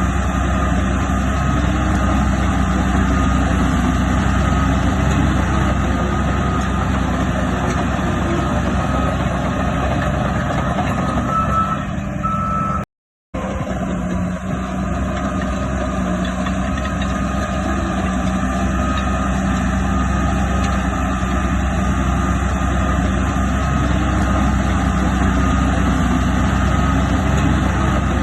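Heavy diesel earthmoving machinery running steadily under load, with a vehicle reversing alarm beeping over the engine drone. The sound cuts out completely for about half a second near the middle.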